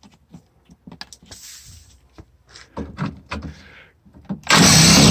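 A 3/8-inch-drive ratchet and socket working a rusty front-end mounting bolt loose: scattered clicks and clanks, then a loud, short burst of noise about four and a half seconds in.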